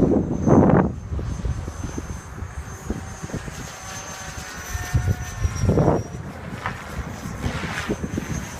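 Electric RC helicopter flying, its motor and rotor giving a steady high whine, while strong wind gusts buffet the microphone, loudest near the start and about six seconds in.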